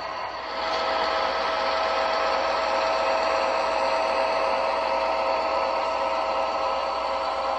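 HO scale model diesel locomotives running on the track: a steady mechanical hum with several held tones, from the motors and wheels on the rails. It gets louder about half a second in and then holds steady.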